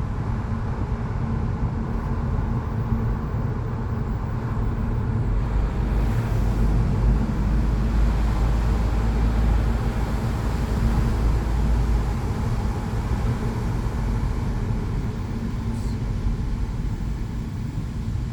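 A car driving, with steady road and engine noise and a low rumble that grows heavier for a few seconds in the middle.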